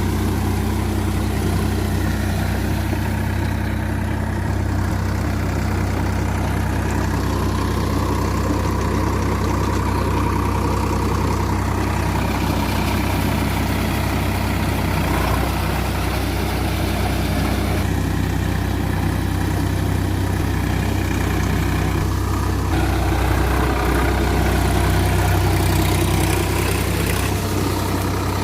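Sonalika DI-47 RX tractor's diesel engine running steadily under way, with a constant low-pitched drone that grows slightly louder for a few seconds near the end.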